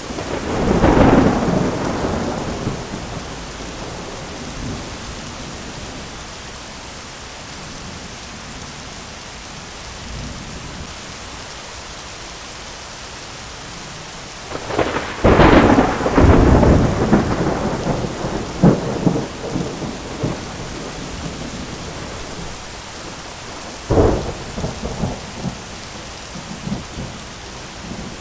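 Thunderstorm: steady rain hiss with rumbling thunder, a roll about a second in, a longer crackling peal with several sharp cracks from about 15 to 20 seconds, and a sharp clap near 24 seconds.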